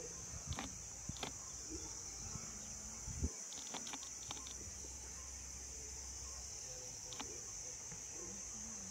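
Steady high-pitched insect chorus, like crickets, with scattered short clicks and snaps and one sharper knock about three seconds in.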